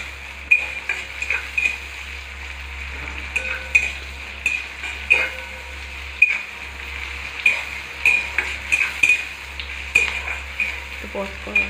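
Sliced onions and green chillies sizzling in mustard oil in a karahi, with a metal spatula scraping and clicking against the pan many times as they are stirred.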